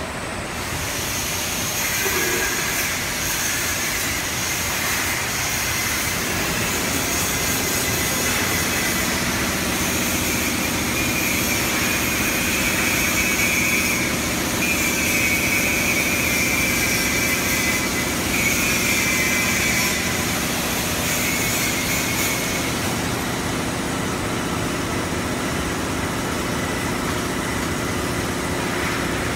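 Packaging line running steadily: conveyor belts and a checkweigher carrying shrink-wrapped cartons, giving a continuous machine hum and hiss. A faint high whine comes and goes through the first two-thirds.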